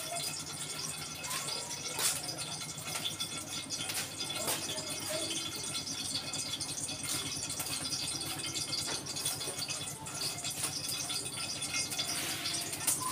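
Canola oil heating in a pan on a gas burner, crackling and spitting steadily, with a steady low hum underneath and a few sharp clicks.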